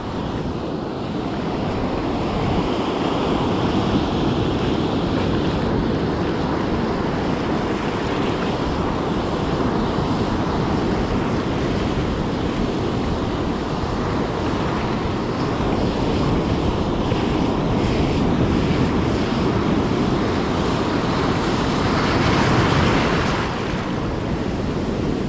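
Ocean surf breaking and washing up the beach, with wind buffeting the microphone; a steady wash of noise that swells a little near the end.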